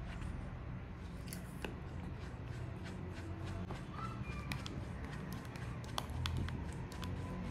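Silicone spatula stirring a thin flour-and-water batter in a stainless steel bowl: wet stirring with scattered light clicks and scrapes of the spatula against the bowl.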